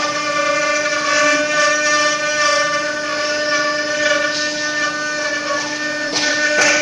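Spindle of a 4-axis CNC wood router running at a steady high whine, its small carving bit cutting into a wooden furniture leg turned on the rotary axis.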